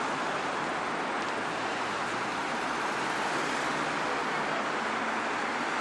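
Steady road traffic noise: an even rush of passing cars with no distinct events.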